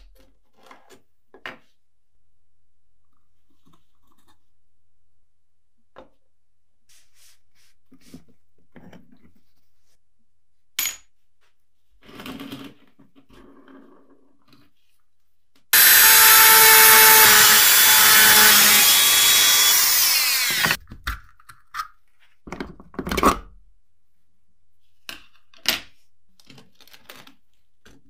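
Rusty metal calendar parts clicking and knocking as they are handled and taken apart. About halfway, a power tool runs loudly for about five seconds, its pitch sliding down just before it cuts off.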